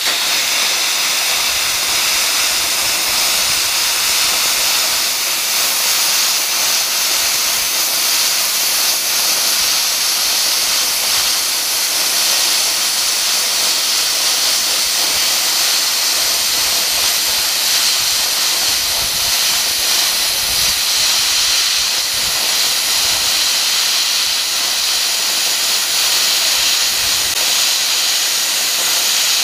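PrimeWeld CUT60 60-amp air plasma cutter with its IPT-60 torch cutting through 3/4-inch mild steel at full 60 amps on 220 V. The plasma arc and air jet blasting through the kerf make a steady, loud hiss.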